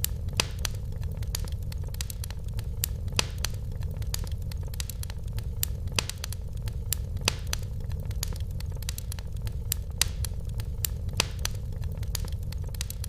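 Fireplace fire crackling, with irregular sharp pops over a steady low rumble of the flames.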